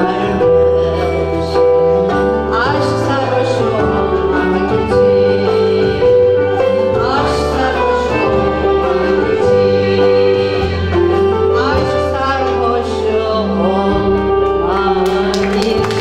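A woman soloist singing a Turkish art-music song in makam Rast, her voice gliding between held notes, over a live instrumental ensemble that plays sustained notes.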